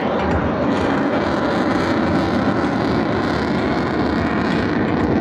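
Fighter jet's engines making a steady, even noise as the jet flies a slow, low-speed pass overhead.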